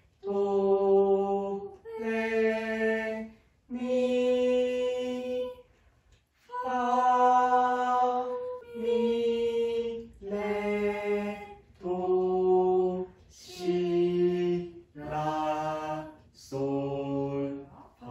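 Unaccompanied voice singing a church-mode scale in solfège, one steady held note after another, about eleven notes with short breaks between them. The pitch climbs over the first few notes, then steps down to the lowest notes near the end.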